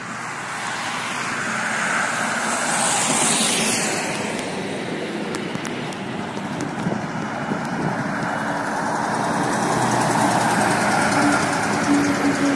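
Highway traffic passing close by: one vehicle swishes past about three seconds in. Then a Volvo B9R sleeper coach goes by, and the steady note of its diesel engine and its tyre noise build to the loudest point near the end.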